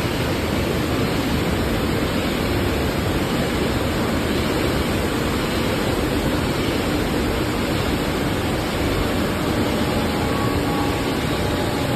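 Hydraulic oil palm fiber baling press running: a steady, loud mechanical rush with no distinct strokes or rhythm.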